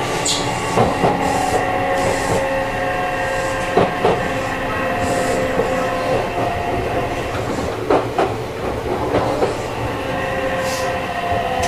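Yokohama Minatomirai Railway Y000 series electric train running, its Toshiba IGBT-VVVF drive and traction motors giving a steady whine. The wheels click over rail joints now and then.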